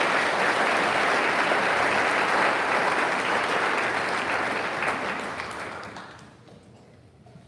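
Audience applauding a graduate whose name has just been called, the clapping fading out about six seconds in.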